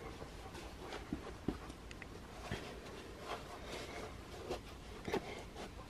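Faint rustling and a few soft, scattered taps as slip-on sneakers are pulled onto the feet and the feet shift on carpet.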